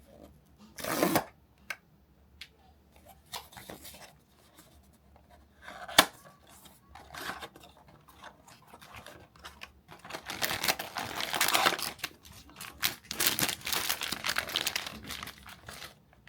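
Packaging being torn open and handled by hand, with rustling and tearing bursts. There is a sharp click about six seconds in, and longer stretches of tearing and crinkling in the second half.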